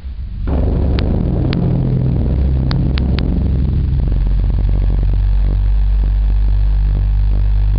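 Rubber ball of a Bongers massage tool scraped across a drum membrane, making a low groaning rumble that starts about half a second in and turns into a rapid juddering stutter about four seconds in. A few sharp clicks of microphone crackle come in the first few seconds.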